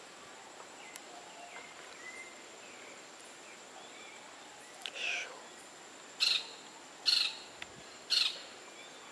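Young parrot giving four short squawks about a second apart in the second half, while it feeds on banana held in a hand.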